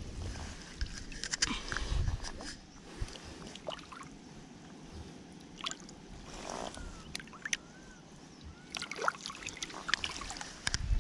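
Shallow river water sloshing and splashing around a hand holding a mahseer in the water during its release. The hand splashes more often near the end.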